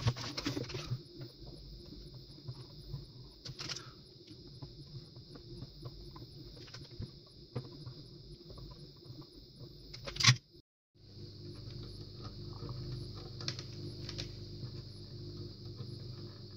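Small scattered clicks and scrapes of a soldering iron tip and tweezers working against a circuit board while desoldering, over a steady high hiss.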